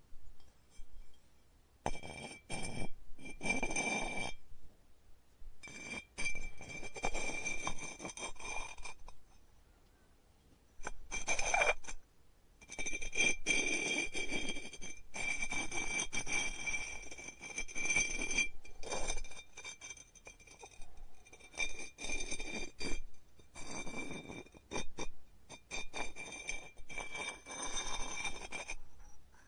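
Pottery studio work sounds: tools scraping clay, with clinks of glazed ware. They come in short stretches that start and stop abruptly, many of them over a steady high whine.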